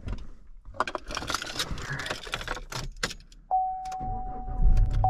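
Clicking and rattling of things being handled inside a pickup's cab, then a single steady electronic beep starts sharply about three and a half seconds in and holds, over a low rumble that grows near the end.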